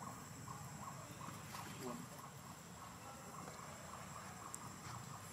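An insect chirping in a steady rhythm, about two or three short chirps a second, over a thin steady high whine.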